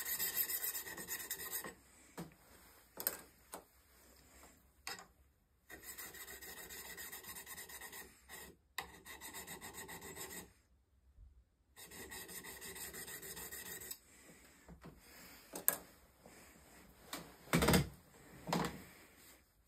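EZE-Lap diamond honing paddle rubbed in quick back-and-forth strokes along the steel bevel of a Stubai drawknife, in runs of a few seconds with pauses between. The honing works out the machine grinding marks and raises a burr. A few louder knocks come near the end.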